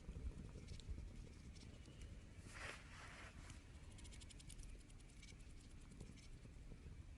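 Wood campfire crackling softly, with scattered sharp pops and a brief hiss about two and a half seconds in, over a low rumble.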